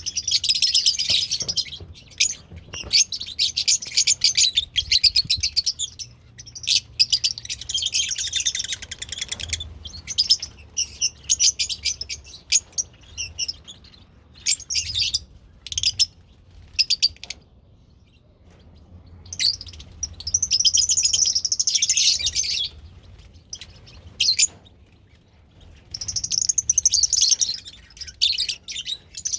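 Small pet parrots chattering and chirping: rapid, shrill twittering that comes in bouts of a second or a few seconds with short pauses between.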